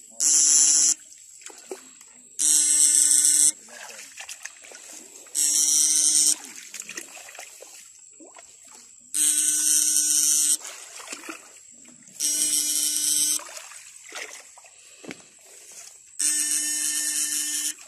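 Homemade high-voltage electrofishing shocker buzzing loudly in six bursts of about a second each, a few seconds apart, as the current is switched into the water through the probe rods to stun fish. Water splashes and trickles between bursts.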